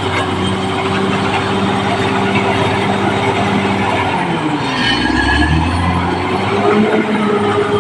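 Caterpillar D6R crawler bulldozer's diesel engine running hard, with a noisy mechanical clatter over it. About four seconds in the engine note sags, then climbs back up about two seconds later, as the engine takes on load and recovers.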